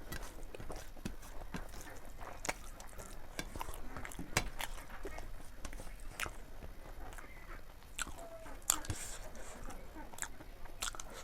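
Close-up chewing and biting of chicken pieces from a curry: wet mouth clicks and crunches, with two sharper crunches, one a little past four seconds in and one near nine seconds.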